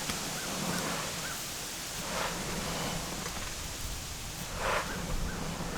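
Low background hum with two brief rustles, about two seconds in and near the end, and faint short chirps.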